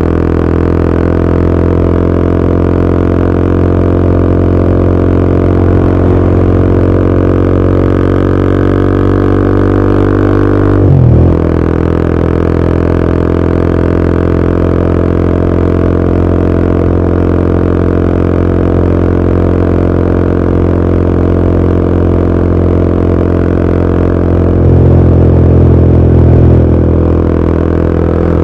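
Royal Enfield Himalayan 450's single-cylinder engine through a ZARD aftermarket exhaust with the baffle fitted, running as a steady drone while riding at a constant speed. There is a brief break in the note about a third of the way in, like a gear change. Near the end the note gets louder for a couple of seconds as more throttle is given.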